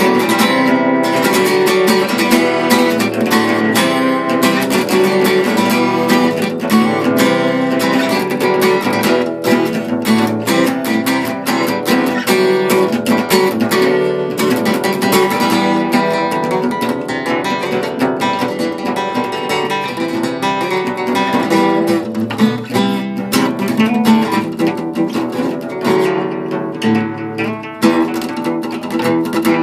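Solo acoustic guitar, improvised: a steady stream of picked notes and chords with many quick plucked attacks.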